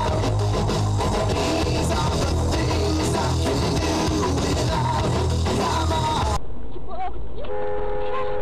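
Rock music with electric guitar, drums and bass, which cuts off abruptly about six seconds in. A thinner dashcam soundtrack follows, with a steady chord of tones held for about a second near the end.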